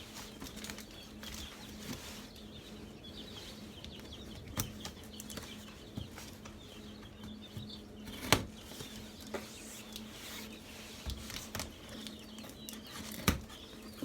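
A cardboard shipping box being handled and opened: scattered rustles and a few sharp knocks, one much louder than the rest about eight seconds in, with faint bird chirps behind.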